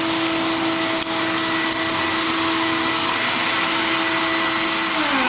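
Vacuum motor of a media-blasting cabinet running with a steady whine and hiss. Near the end it is switched off and the whine starts falling in pitch as the motor spins down. There is a single light click about a second in.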